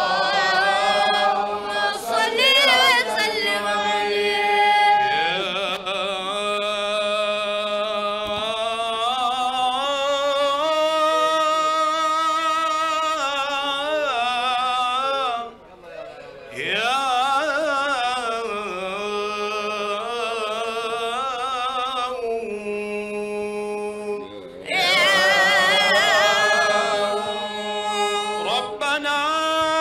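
A male voice chanting a maulidi (Mawlid) recitation into a microphone, unaccompanied, in long held notes with ornamented wavering turns. A steady low note is held underneath at the start and again near the end, and the chant breaks off briefly about halfway through.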